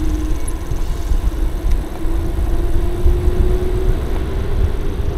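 Wind rumbling on the microphone of a mountain bike in motion, with a faint steady hum that slowly rises in pitch.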